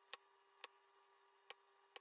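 Diamond painting drill pen clicking as it places diamond drills onto the canvas: four sharp, light clicks spaced about half a second to a second apart, over a faint steady hum.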